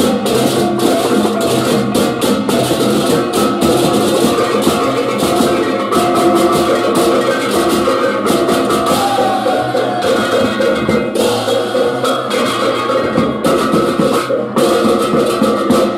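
Balinese processional gamelan (baleganjur) playing: small hand-carried kettle gongs struck with mallets in fast, dense interlocking patterns, with frequent sharp metallic strokes over steady ringing gong tones.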